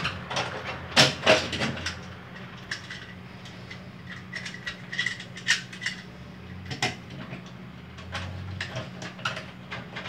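Scattered clicks and knocks of hard plastic parts being handled and pressed together as a new cam set and its stiff spring are fitted onto a washing machine's gearbox shaft. The loudest knock comes about a second in, over a low steady hum.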